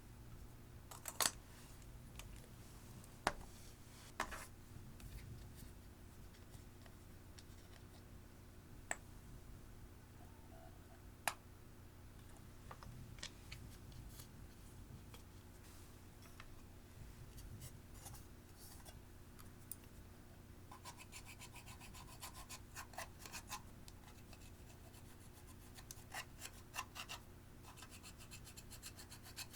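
Clear slime and eyeshadow being worked by hand, making scratching and sharp small clicks: a few isolated clicks at first, then a dense run of rapid crackles in the last third. A steady low hum runs underneath.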